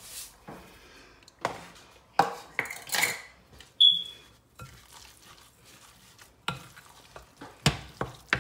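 Kitchen utensils knocking and scraping against a mixing bowl as breadcrumbs are added and stirred into a haddock patty mixture. There are irregular clinks throughout, and one short, ringing clink just before four seconds in.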